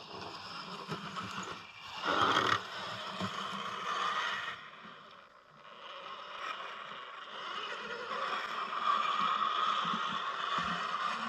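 Scale RC crawler trucks' electric motors and gearboxes whining as they crawl over dirt and dry leaves, with a louder burst about two seconds in. The whine dips briefly, then swells in the second half as one truck crawls close by.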